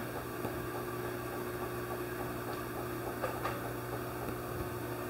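Steady low mechanical hum of the workshop's background, with a couple of faint knocks from handling a wooden trim board a little over three seconds in.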